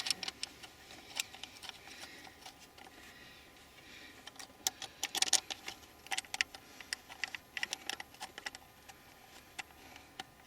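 Small bolts being started by hand into a plastic air filter housing bracket on an engine: scattered light clicks and taps, in quick clusters about halfway through.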